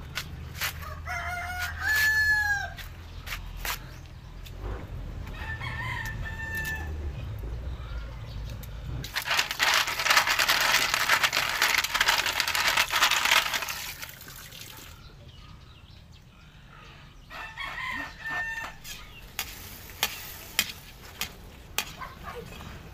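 A rooster crowing three times: near the start, around six seconds in, and around eighteen seconds in. Between the second and third crows comes a loud stretch of rough, even noise lasting about five seconds, and a few sharp clicks sound near the end.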